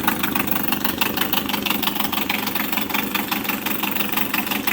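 1999 Suzuki 6 hp outboard motor running steadily at idle, with an even, rapid beat of firing pulses. The engine is still cold, a minute or so after a cold start.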